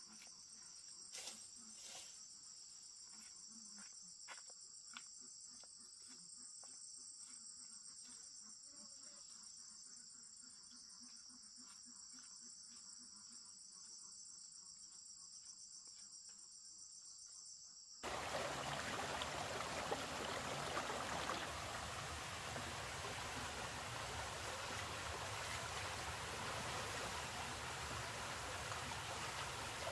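A steady, high-pitched insect chorus, with a few faint clicks, stops abruptly about eighteen seconds in. It gives way to a louder, steady rushing noise with no clear pitch.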